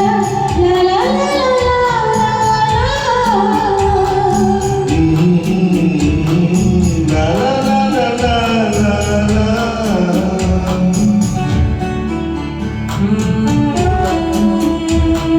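Music: a gliding melody line over a steady beat.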